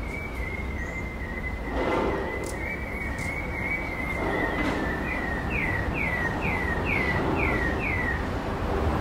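A high, wavering whistle held for about five seconds, then a run of about seven quick falling notes, over a steady low traffic rumble.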